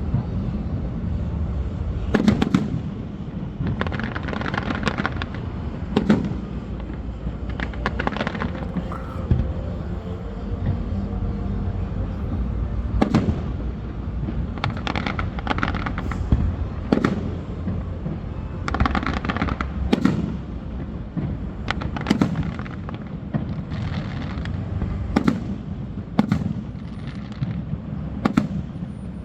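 Fireworks display: aerial shells bursting one after another, a sharp bang every second or two, several followed by a few seconds of crackling.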